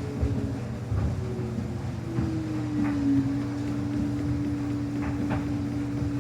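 Samsung washing machine running, its motor whine falling in pitch over about three seconds and then holding steady over a low hum, with a few faint knocks from the drum.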